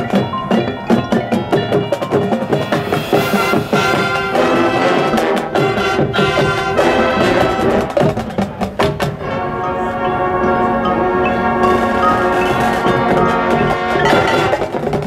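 High school marching band playing, with percussion and mallet instruments and brass: quick struck notes at first, then held brass chords from about four seconds in, with the strikes coming back near the end.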